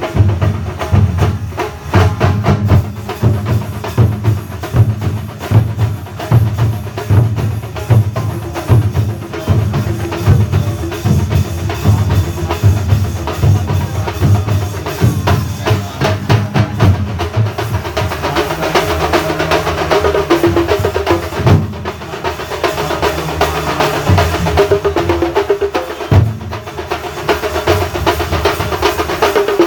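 Thambolam percussion ensemble playing a fast, dense drum rhythm with heavy bass-drum beats and sharp wood-block-like strokes. From about eighteen seconds in, a pitched melodic line sounds over the drumming.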